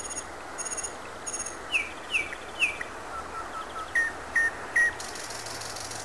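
Common nightingale singing a varied phrase built of repeated notes: a few thin high notes, three loud down-slurred whistles, four soft low notes, three more loud notes, then a dry buzzy trill near the end.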